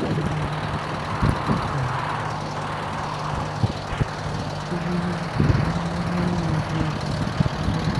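Lorry diesel engine running steadily at idle, a low hum that steps up slightly in pitch about halfway through, with a few sharp knocks.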